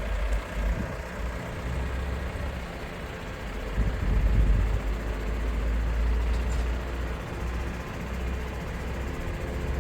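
Aerial lift truck's engine running steadily with a low rumble that swells louder about four seconds in.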